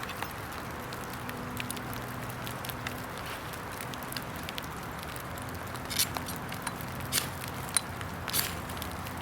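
Steady hiss of rain in wet woods under a faint, steady low hum, with a few sharp clicks or scrapes in the last few seconds.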